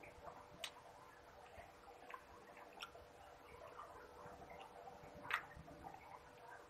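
Faint wet clicks and squelches of fingers mixing rice and curry on a steel plate, with a few sharper clicks; the loudest comes about five seconds in.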